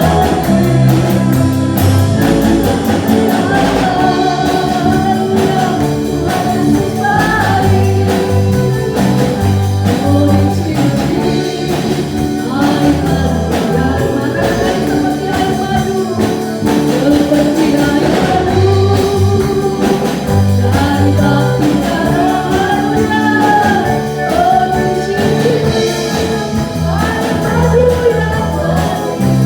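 Christian worship song in Indonesian: sung melody over instrumental backing with a steady bass line.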